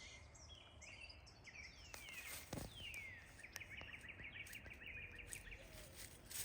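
Faint wild songbird singing: two high whistles sliding downward, then a quick trill of about seven short notes a second, over soft outdoor background with scattered faint ticks.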